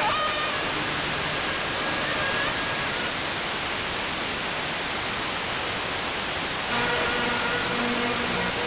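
Wideband FM receiver static from an RTL-SDR tuned around 73 MHz, a steady loud hiss. A weak distant broadcast station's audio fades faintly in and out through it, briefly near the start and again for the last couple of seconds.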